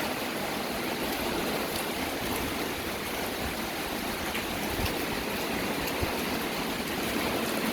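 Heavy hurricane rain pouring down steadily in a dense, even hiss, with a couple of faint knocks near the middle.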